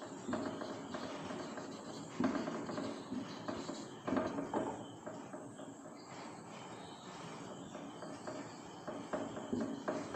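Dry-erase marker squeaking and scratching on a whiteboard in short, uneven strokes as handwriting is written, with a quieter stretch a little past the middle.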